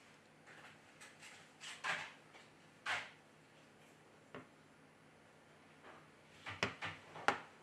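Hands handling a smartphone: a scattering of faint clicks and light knocks, with a quick run of sharper clicks near the end.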